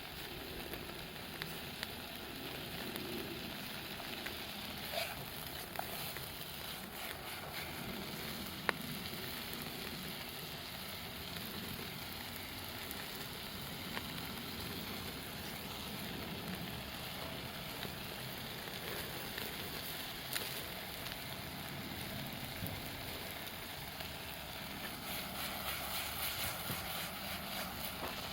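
Wood campfire burning: a steady hiss with occasional sharp pops, the crackling growing louder and denser near the end.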